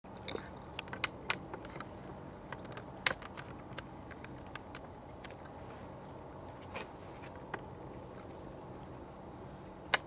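A tit pecking at peanuts in a wire-mesh feeder: irregular sharp taps and clicks, several close together in the first two seconds, the loudest about three seconds in and at the very end, over a faint steady hum.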